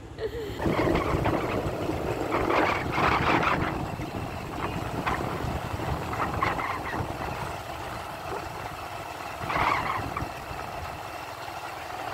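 Motorcycle on the move, its engine running under rough wind noise on the microphone.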